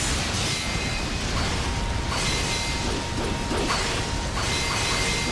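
Anime battle sound effects: a continuous rushing noise with a string of sharp hits, and a steady high ringing tone coming in about a second and a half in.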